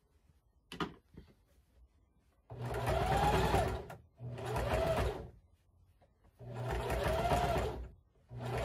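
Electric sewing machine stitching in stop-start runs of a second or so, its motor whine rising and falling as it speeds up and slows down, with a short click about a second in before the first run.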